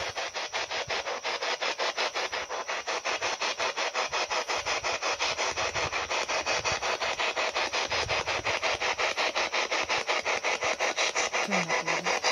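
Spirit box, a handheld radio sweeping rapidly through stations, giving out a steady chopped hiss of static that pulses about six times a second, each pulse a jump to a new frequency.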